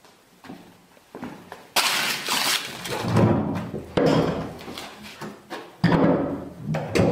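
Styrofoam letters being stomped and crushed underfoot: a series of sudden thumps, each followed by crunching and crumbling of the foam. The loudest thumps come about two seconds in and near six seconds in.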